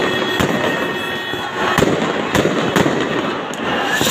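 Aerial fireworks bursting overhead: sharp bangs every half second or so at uneven spacing, over continuous crackling.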